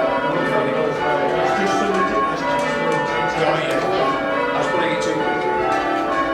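Cathedral tower bells rung full-circle by hand, one stroke after another. Their ringing tones overlap into a continuous peal.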